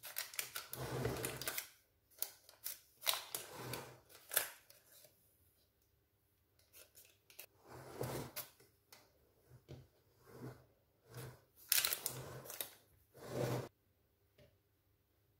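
Parchment paper lining a springform pan rustling and crinkling in irregular bursts as hands press plum wedges into the dough, with short pauses between.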